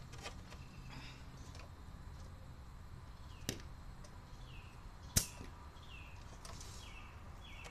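Two sharp clicks, about a second and a half apart, the second louder. Between and after them a bird repeats short, falling chirps.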